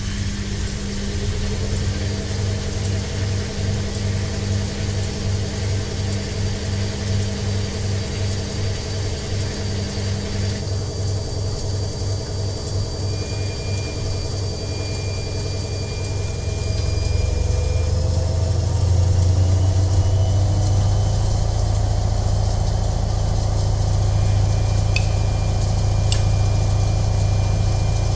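Washing machine running: a steady low motor hum with a throbbing pulse and tones that rise in pitch as the drum speeds up. It gets louder about two-thirds of the way through, and a few faint clicks come near the end.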